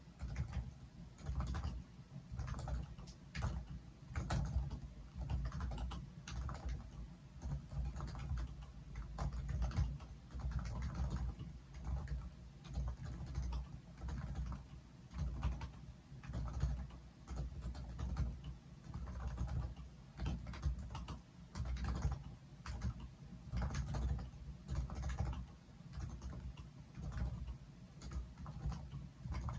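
A modified Topre Realforce keyboard being typed on steadily. Its electrostatic capacitive switches (rubber domes over springs) give keystrokes in quick, irregular runs, with a dull, low-sounding thock.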